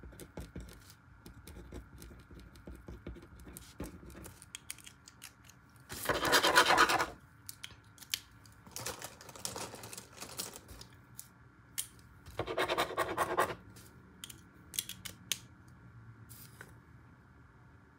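Pen or marker scratching on paper in short writing strokes, with three louder scraping noises of about a second each, around six, nine and thirteen seconds in.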